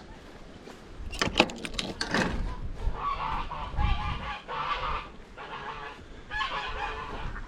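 Domestic geese honking in a few bouts of calls, after a quick run of sharp clicks about a second in.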